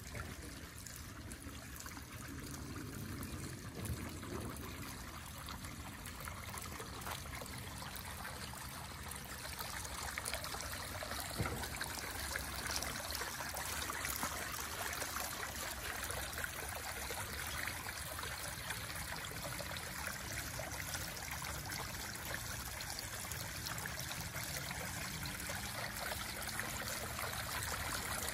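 Water trickling and splashing over a Nevada Dome Rock boulder fountain, a steady running-water sound that grows gradually louder.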